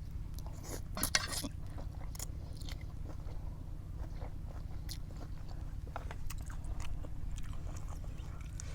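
A person biting and chewing crunchy food, with scattered crisp crunches, the loudest cluster about a second in.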